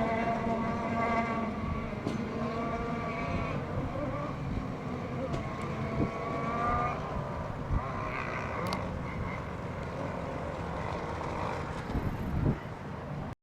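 Radio-controlled racing boat engines running at low speed, their pitch rising and falling a little and fading as the boats come in. There are a few short knocks, the loudest near the end, before the sound cuts off suddenly.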